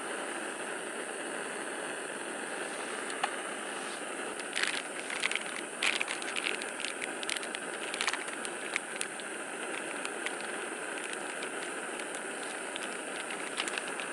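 Food frying in a pan: a steady sizzle with a spell of sharp crackles and pops from about four to nine seconds in, and a few more near the end.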